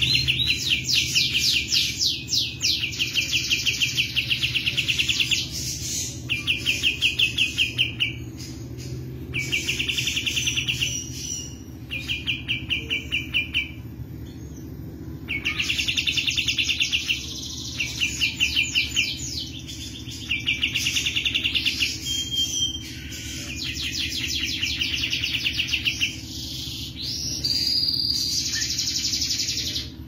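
Grey-cheeked bulbul (cucak jenggot) singing in fast, drill-like trills, phrase after phrase with short pauses between: the rapid continuous singing that bird keepers call 'ngebren'.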